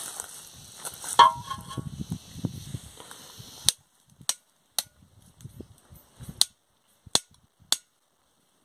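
Small wood campfire crackling: sharp single pops at uneven intervals, about half a dozen in the second half. Before that there is a light rustle and one louder knock about a second in.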